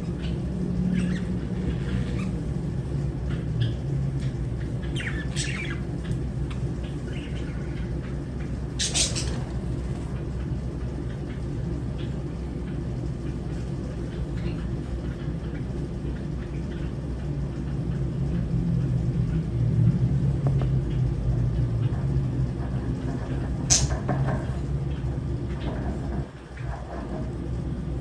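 Lovebirds giving a few scattered sharp squawks and chirps, the loudest about nine seconds in and one sharp squawk near the end, over a steady low rumble.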